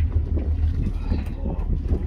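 Steady low rumble aboard a boat at sea: the engine running, with wind buffeting the microphone.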